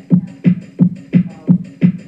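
Electronic keyboard playing a steady, machine-even beat of low thumps, about three a second.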